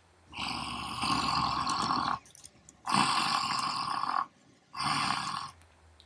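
A man roaring three times in Simhasana, the yoga lion pose, with mouth wide open and tongue stuck out. The roars are breathy and forced out from the throat; the first lasts about two seconds and the last is the shortest.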